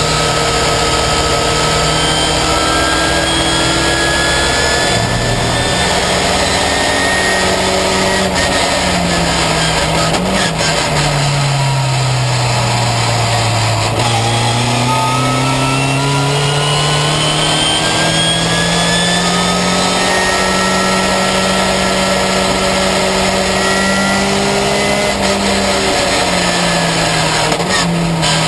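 Ginetta Junior race car's engine heard from inside the cockpit at racing speed: it slows with the revs falling for several seconds about halfway through, then pulls steadily back up through the revs, with a short dip near the end like a gearchange. A steady rush of wind and road noise runs underneath.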